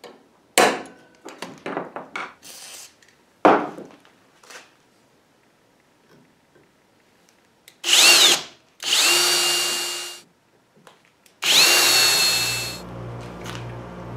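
Metal parts and tools clicking and clattering on a workbench, then a handheld drill run in three short bursts. Each burst spins up with a rising whine and winds down as the bit drills into a metal motor-mount bracket.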